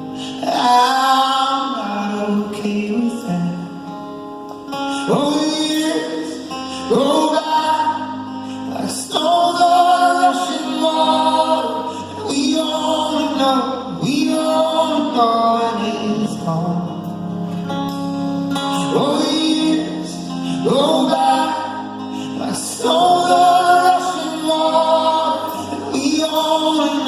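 A live band playing a song, with singing over the instruments.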